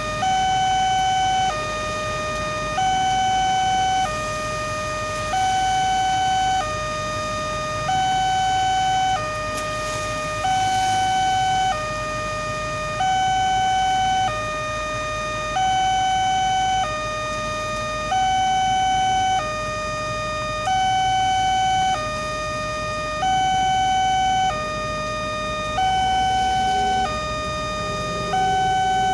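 Railway level-crossing warning alarm sounding: an electronic two-tone signal alternating steadily between a higher and a lower tone, each held a little over a second, warning that a train is approaching while the barrier is down.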